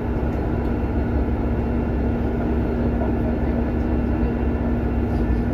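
Steady engine rumble heard from inside a bus, with a constant low drone and no sharp events.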